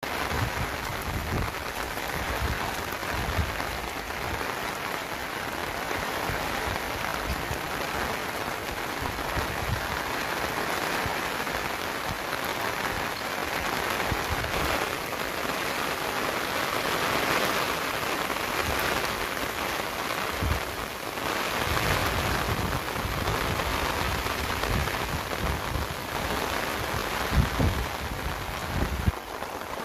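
Steady rain falling, a dense even hiss, with irregular low rumbles now and then and a few louder low knocks near the end.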